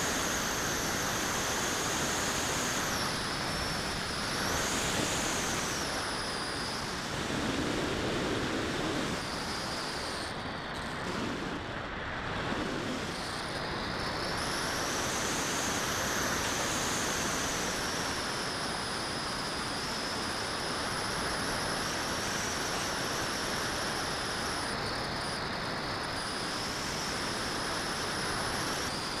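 Wind rushing over a camera mounted on a 3.2-metre model glider in flight: a steady windy hiss, with a thin high whistle that wavers up and down in pitch.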